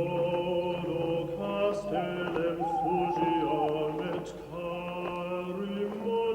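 Eerie background music of sustained droning tones that shift in steps, with a higher wavering, gliding tone over them about halfway through.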